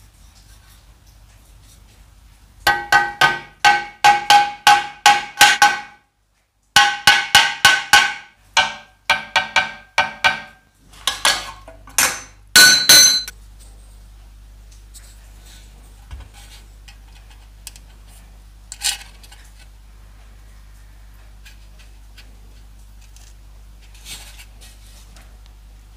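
Hammer striking the steel of an old exhaust pipe on a small anvil block: a quick series of ringing metal blows, about three a second, breaking off briefly and then going on in a sparser run that ends about halfway through. After that come only a few faint light taps of a metal pick on the pipe.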